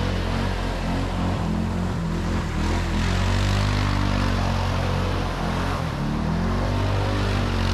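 Utility side-by-side (UTV) engine running steadily under throttle as the vehicle circles in slushy snow, with its tyres churning and spraying slush.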